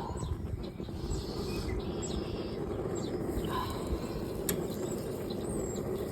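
A large flock of birds chirping and calling, many short high chirps over a steady rumble of wind on the microphone. A single sharp click about four and a half seconds in.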